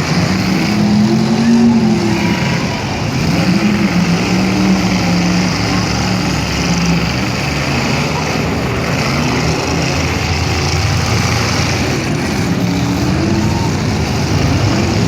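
Demolition derby truck engines revving up and down over a steady engine din.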